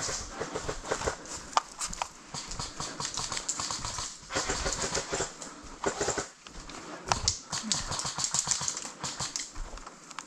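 Footsteps scuffing over dry ground and brushing through undergrowth, with the rifle and gear knocking against each other: a steady run of irregular clicks and knocks, with two longer stretches of rustling.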